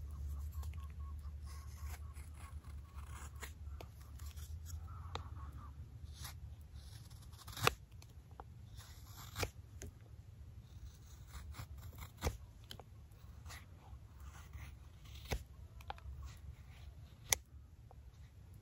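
Carving knife taking thin shaving cuts along the handle of a dried wooden spoon: faint scraping strokes, with a handful of sharper clicks as the blade cuts through the wood.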